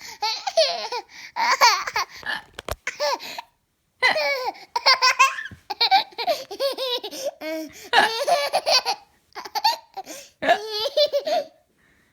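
A small child giggling in a string of short, high-pitched bursts with brief pauses between them.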